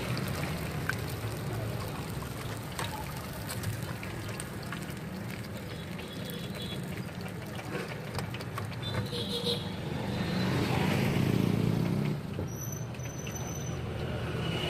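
Street traffic noise over a steady low hum, swelling louder for a couple of seconds about ten seconds in. Occasional sharp clicks of a metal skimmer against an iron kadai run through it.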